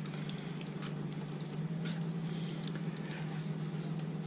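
Hands squishing thinly sliced ribeye through a soy-sauce marinade in a plastic bowl: soft, irregular wet squelches and small slaps. A steady low hum runs underneath.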